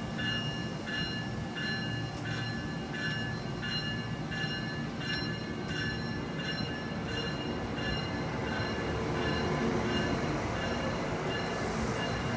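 Amtrak Amfleet passenger coaches rolling past at close range: a steady rumble of steel wheels on rail. High ringing squeal tones pulse about three times every two seconds and fade out about halfway through. After that the rumble grows louder towards the end.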